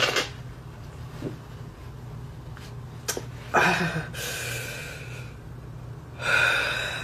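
A woman crying: a sniff into a tissue at the start, then shaky sobbing breaths, a long one from about halfway through and another near the end. A steady low hum lies underneath.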